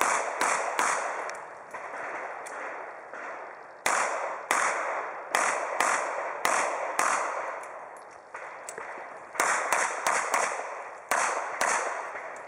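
A revolver fired in rapid strings during an IPSC stage: sharp shots, often in quick pairs, each with a short ringing tail. A few shots come in the first second, then a gap of about three seconds before the shots resume and run on through the rest.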